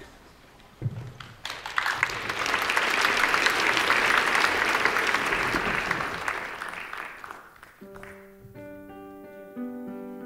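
Audience applause, swelling and dying away over about six seconds. Near the end a soft instrumental introduction of held chords begins.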